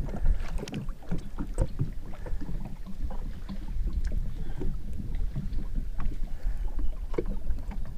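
Wind buffeting the microphone and small waves lapping against a boat's hull, a steady low rumble with scattered faint, irregular ticks and knocks.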